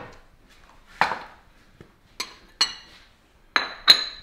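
Crockery and cutlery being set down and handled on a kitchen counter: a series of five or six separate knocks and clinks, the last two ringing briefly.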